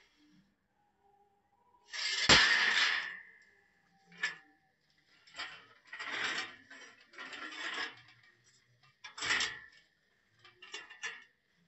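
Welded steel square-tube stand-and-chair frame being handled and reconfigured by hand: a series of metal clanks, knocks and scrapes, the loudest a sharp knock about two seconds in.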